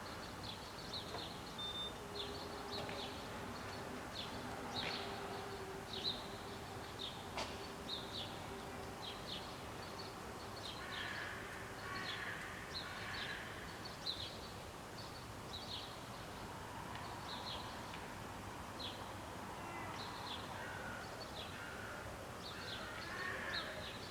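Birds chirping in short, high notes again and again over a steady background of outdoor noise.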